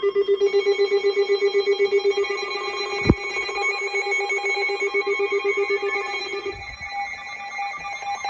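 Electronic alert tone for an incoming weather warning: a loud, rapidly pulsing ringing tone, like a telephone bell, with a sharp click about three seconds in. The low main tone stops about six and a half seconds in, and higher electronic tones carry on.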